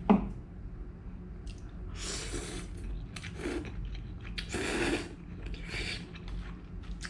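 Someone slurping and chewing fried prawn noodles off a fork, with about four noisy slurps between two and six seconds in. A short, sharp knock comes right at the start.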